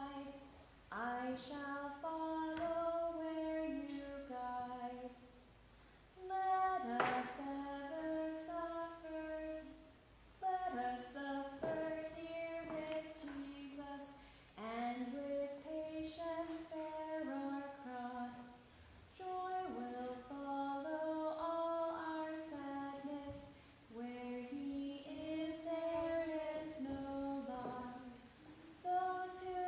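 A woman's voice singing a hymn unaccompanied, in slow phrases of a few seconds each with short breaths between.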